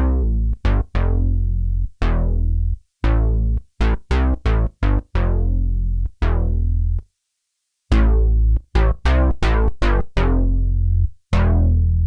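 Roland Cloud Juno-60 software synthesizer playing its 'WalkMe Bass' preset: a line of short, low bass notes, each starting bright and quickly darkening, broken by two brief silences in the phrase.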